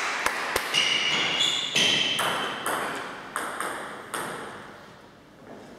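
Table tennis ball ticking: a string of sharp clicks from the ball bouncing and being struck by paddles, about two to three a second, growing fainter toward the end.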